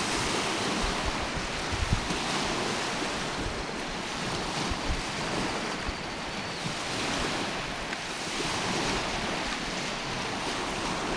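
Steady rush of wind and small lake waves washing on the shore, with wind buffeting the microphone in irregular low rumbles.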